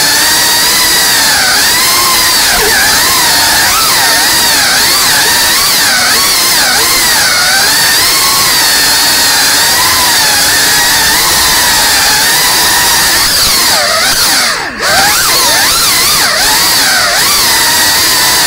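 FPV drone's brushless motors and propellers whining, the pitch wavering up and down constantly with the throttle. About fourteen seconds in the whine drops away for a moment, then comes straight back.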